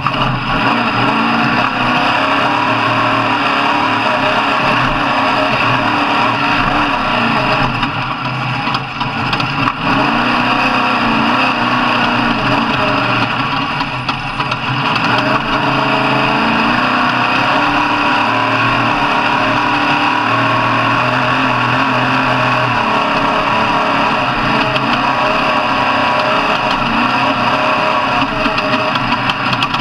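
Off-road race vehicle's engine running hard and continuously, its pitch stepping up and down as the throttle is worked.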